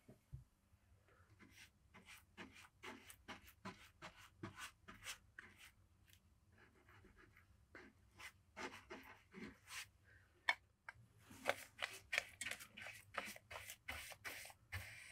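Quick, repeated scratching strokes, roughly two or three a second at first, then faster and louder in the last few seconds, with one sharp click about two-thirds of the way through.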